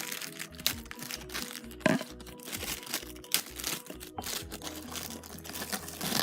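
Parchment paper crinkling and crackling as it is pulled off the roll, over background music with a steady tune.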